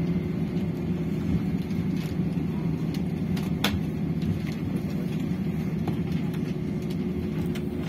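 Cabin noise of an Airbus A320-214 taxiing after landing: a steady low rumble from its CFM56 engines at idle and the aircraft rolling on the runway. There is one sharp click about halfway through.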